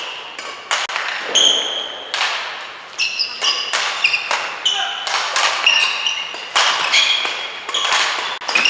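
Badminton doubles rally: rackets strike the shuttlecock in quick succession, each hit a sharp crack echoing in the hall, with shoes squeaking on the court floor between the hits.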